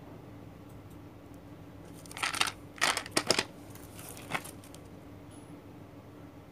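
Plastic-wrapped paper parcels being handled: three short spells of crinkling and rustling, a little after two seconds in, around three seconds, and about four seconds in, over a faint steady hum.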